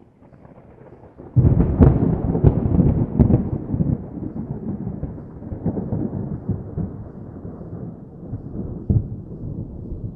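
Thunder: a faint low rumble, then about a second and a half in a sudden loud clap with several sharp cracks, followed by a long rumble that slowly fades, with one more crack near the end.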